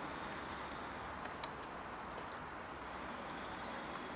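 A young terrier nibbling at thin bare twigs, small clicks of teeth and twig over a steady faint outdoor background noise, with one sharper click about a second and a half in.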